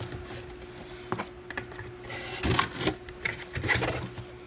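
Cardboard box flaps being handled and pulled open: a run of irregular clicks and rustles, loudest about two and a half seconds in and again near the end. A faint steady hum sits underneath.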